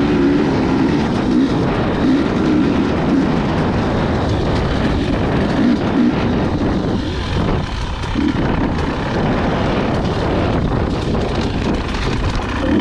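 Husqvarna dirt bike engine revving up and down as it is ridden along a rough trail, the pitch rising and falling with the throttle. The throttle eases off briefly a little past halfway, then picks up again.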